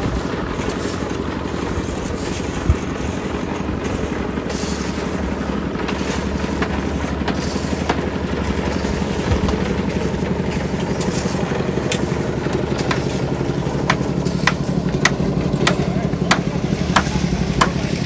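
Engine of a drum concrete mixer running steadily while a slab is poured. From about two-thirds through, sharp knocks come roughly once a second over the drone.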